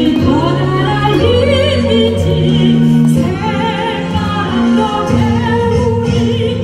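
Female soprano singing in an operatic style through a handheld microphone, with wide vibrato on held notes, over a sustained instrumental accompaniment.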